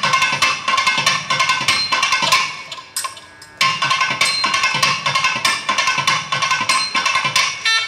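Thavil barrel drum played solo in a fast run of sharp strokes over a steady drone. The drumming breaks off for about half a second around three seconds in, then resumes.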